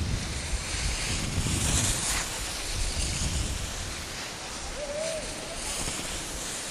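Wind buffeting the microphone with a low rumble that eases off, over the hiss of skis carving across snow.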